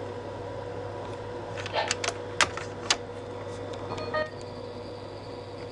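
Steady low electrical hum with a thin steady tone over it, broken by light handling rustle and a few sharp clicks about two to three seconds in, and a brief short chirp just after four seconds.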